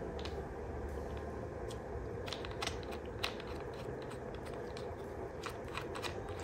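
Scattered small clicks and taps as a Sony ZV-1 compact camera is handled and fitted onto a Sony GP-VPT2BT plastic shooting grip, over a steady low background hum. The sharpest click comes about three seconds in, with a few more near the end.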